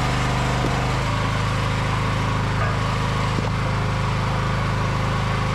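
Small gasoline engine of a hydraulic log splitter running steadily. About a second in its note shifts as the hydraulic log lift takes up the weight of a large round and raises it onto the splitting beam.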